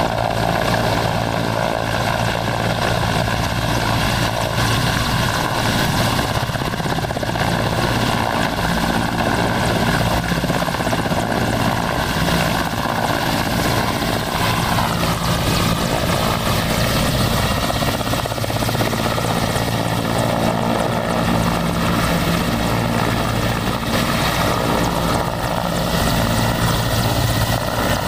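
Mil Mi-8-type transport helicopter hovering low to land, its rotor beating steadily under a turbine whine. About halfway through, the whine rises in pitch and holds there.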